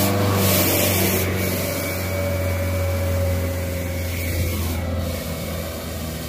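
Water poured onto a heavily loaded truck's overheated brakes, hissing and sizzling into steam, over the steady hum of the truck's idling engine. The hiss eases off slightly toward the end.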